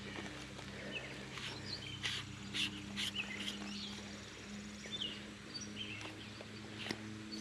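Birds chirping in short scattered calls over a steady low hum, with a few sharp clicks and knocks in the middle and once near the end.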